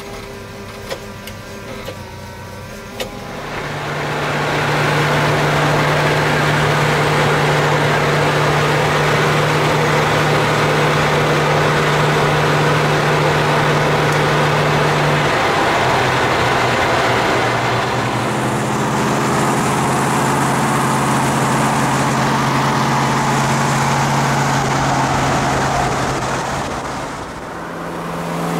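Ford F-100 pickup's engine pulling away and then running at a steady road speed, heard from inside the cab. A couple of light clicks come first. The engine note steps down in pitch about halfway through and dips near the end.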